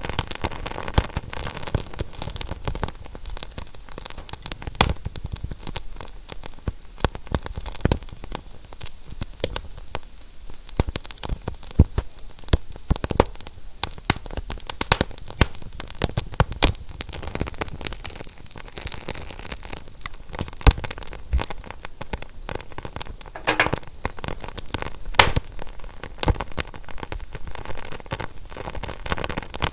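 Fire crackling: a steady hiss with frequent, irregular sharp snaps and pops, a few louder than the rest, and a brief hiss about three-quarters of the way through.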